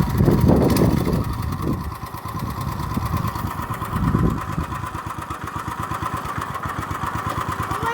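Go-kart engine idling with an even pulsing beat, revving up briefly about half a second in and again about four seconds in.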